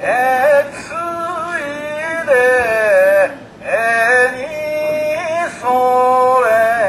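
A man singing a drawn-out festival chant through a handheld megaphone: long held notes that slide and waver, in phrases with short breaks between them.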